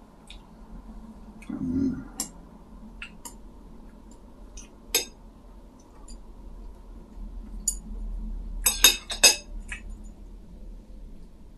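Table noises of someone eating: chopsticks, bowls and glasses clinking with scattered sharp clicks, and a quick run of louder clinks about three-quarters of the way through. A short low sound comes about two seconds in.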